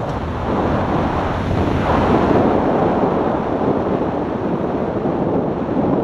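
Wind rushing and buffeting against a microphone on a moving motorcycle, a steady loud noise, with the motorcycle's engine and road noise mixed underneath.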